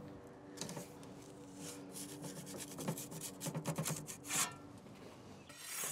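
Perforated metal pizza peel scraping and jiggling on the stone deck of a wood-fired Ooni Pro oven as a pizza is launched: a run of quick rubbing scrapes, loudest about four seconds in.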